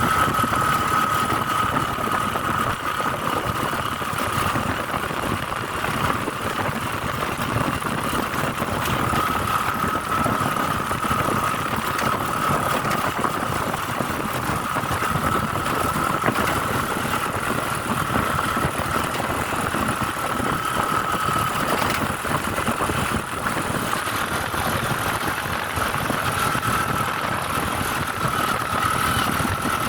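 Engine and road noise of a vehicle on the move, running steadily, with a high steady whine that fades out twice and comes back.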